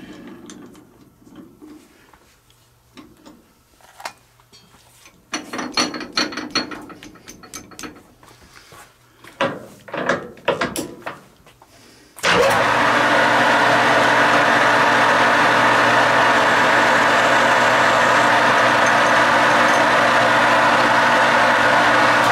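Clicks and knocks of tooling being handled for about twelve seconds, then a metal lathe switched on, its motor and gearing running loud and steady.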